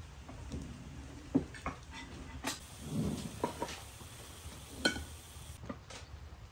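A serving spoon clinking and scraping against a stainless steel pot and plates as cooked food is dished out, with a few sharp clinks, the loudest about a second and a half and five seconds in.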